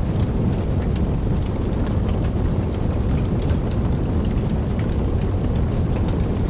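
Wood fire burning, with a steady low rush and many small, scattered crackles and pops.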